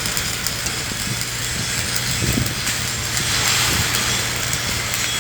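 Steady machinery noise with a constant low hum and faint scattered crackles.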